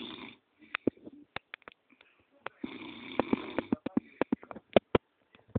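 A man snoring in his sleep: one snore trails off just after the start and another comes about three seconds in, with quick sharp clicks and pops between them.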